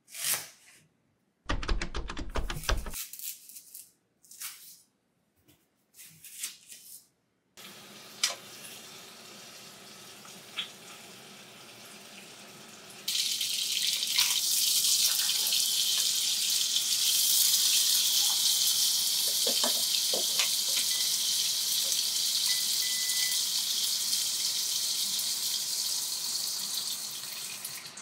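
A kitchen knife cutting a green onion on a wooden cutting board, with a quick run of cuts about 1.5 seconds in. Then chicken frying in a pan: a faint sizzle that turns into loud, steady sizzling about 13 seconds in, with a few clicks of metal tongs.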